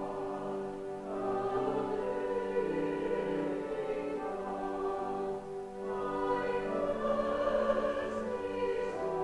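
Small church choir singing a slow hymn anthem in sustained chords, with a short break between phrases about five and a half seconds in.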